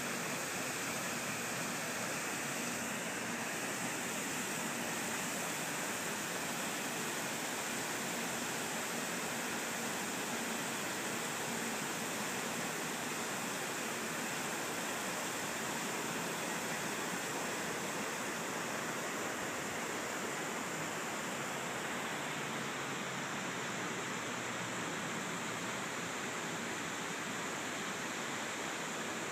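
Steady rushing of river water pouring over a dam.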